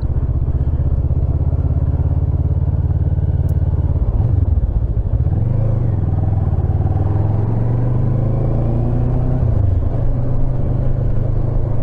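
Kawasaki motorcycle engine running under way, its pitch dipping about four seconds in, then climbing steadily and dropping again near ten seconds in, as with gear changes while accelerating.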